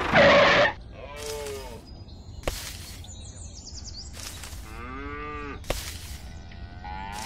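Cattle mooing three times, each call arching up and then down in pitch. Between the calls come short bursts of noise and a couple of sharp clicks, and a loud burst of noise opens the stretch.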